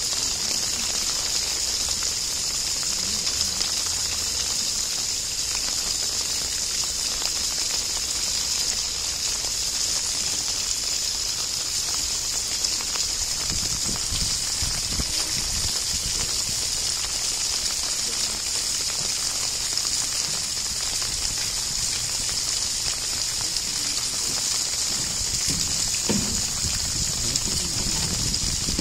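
Steady rush of running water, an even high hiss that does not change.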